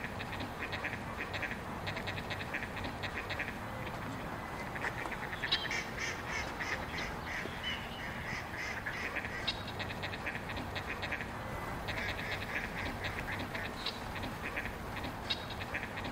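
Ducks quacking in bouts of rapid, chattering quacks, with a short lull about ten seconds in, over a steady low background rumble.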